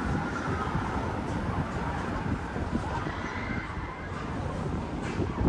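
Outdoor city ambience: a steady low rumble with a faint whine that rises slightly about halfway through, with no distinct events.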